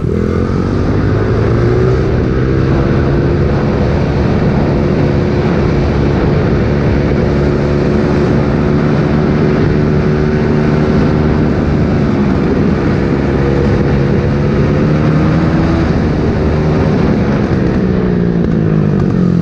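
Pit bike engine under way: it revs up over the first couple of seconds, holds a steady speed, then drops back as the throttle is eased near the end.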